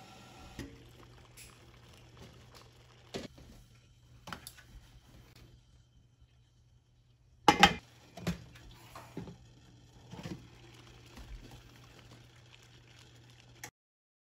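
Water boiling in a stainless steel steamer pot under a glass lid: a steady low hum with scattered small pops and ticks. A sharp double knock stands out about seven and a half seconds in, and the sound cuts off suddenly near the end.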